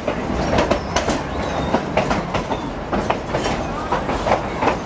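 Durango and Silverton narrow-gauge passenger car rolling along the track, heard from an open-sided car: a steady rumble with frequent irregular clicks and clatter from the wheels on the rails.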